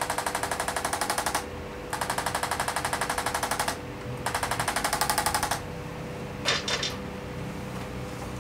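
Handheld electric chiropractic adjusting instrument pressed against the jaw joint, firing rapid, even percussive pulses in three bursts of one and a half to two seconds each, with short pauses between. The pulses are an adjustment meant to release a muscle spasm and a jammed jaw joint (TMJ).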